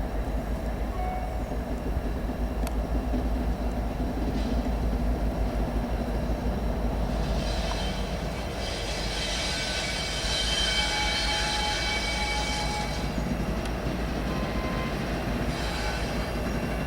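Freight train of tank cars rolling past with a steady low rumble, and a high-pitched wheel squeal from about halfway through that fades a few seconds later, briefly returning near the end.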